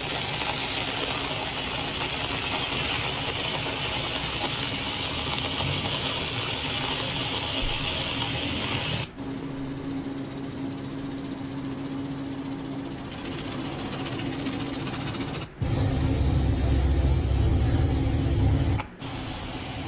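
Steady rushing noise of floodwater and rain on phone microphones, in several short clips joined by abrupt cuts. Near the end there is a much louder, bass-heavy rush as a flooded brown river surges past a footbridge.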